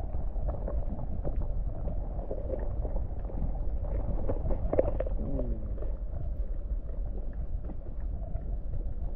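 Muffled rumble and gurgling of creek water heard with the camera microphone held underwater, with scattered small clicks and knocks.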